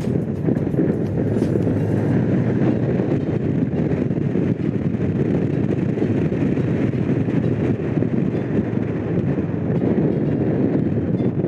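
Honda CX500's V-twin engine running steadily on the move, mixed with wind noise on the microphone.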